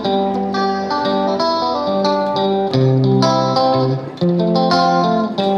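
Background music: a quick melody of sharply struck notes over a bass line.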